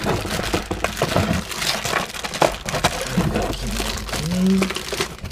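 Clear plastic bag crinkling as the plastic lightning-effect pieces wrapped in it are pulled from a cardboard box and handled: a dense run of crackles. A short low hummed voice sounds about four seconds in.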